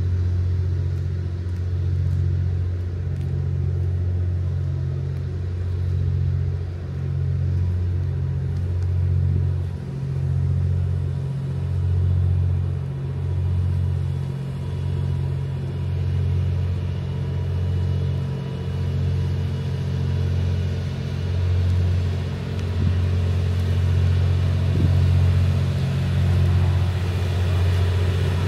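Diesel generator engines of the Twilight Express Mizukaze, a hybrid diesel-electric train, running with a steady low drone as the train pulls slowly away. The drone swells and dips every couple of seconds as the cars go past.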